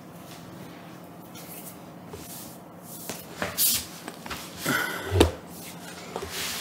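A few soft scuffs and knocks of movement at close range, in two clusters about three and a half and five seconds in.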